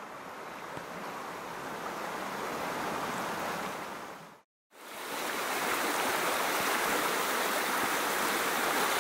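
Rushing stream water running steadily over riffles. It drops out for a moment about halfway through and comes back a little louder.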